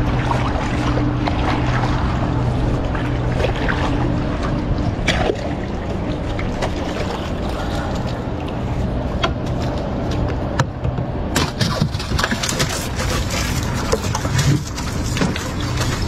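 A small boat's motor running with a steady hum that fades out a few seconds in, followed by water washing around the boat and a few sharp knocks.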